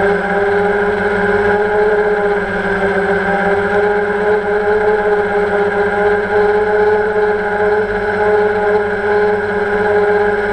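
Electric motors and propellers of a multirotor drone, heard through its onboard camera, running in a steady whine while it holds position in the air, the pitch wavering slightly.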